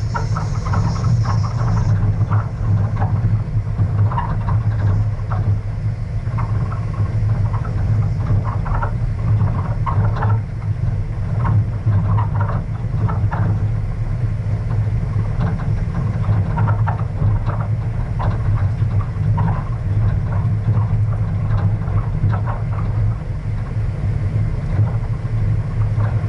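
A vehicle driving along a gravel dirt road: a steady low engine drone, with stones crunching and the body rattling over the rough surface.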